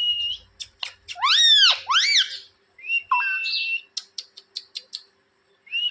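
Pet parrot whistling and calling: a held whistle, then two loud arching whistled calls about a second in, another held whistle around three seconds, and a quick run of sharp clicks near the end.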